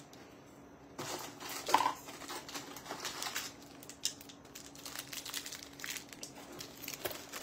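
Rustling and crinkling of candy wrappers and packets being handled and sorted in a cardboard snack box, in scattered short crackles after a quiet first second.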